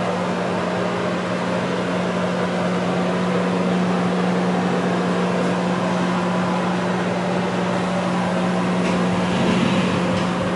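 Bathroom exhaust fan running, a steady hum under an even rushing of air.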